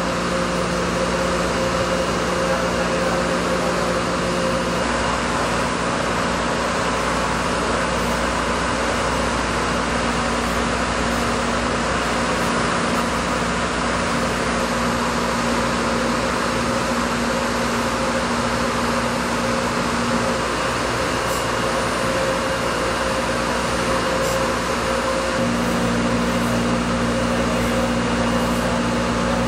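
Thermwood Model 90 five-axis CNC router running as its spindle and a slender cutter machine low-density polyurethane foam. The sound is a steady hiss with a few held hums underneath. One hum drops out for about five seconds around two-thirds of the way through, then returns.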